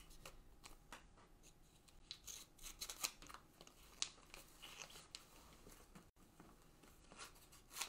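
Scissors cutting kinesiology tape: a few faint snips and clicks, the clearest about three seconds in.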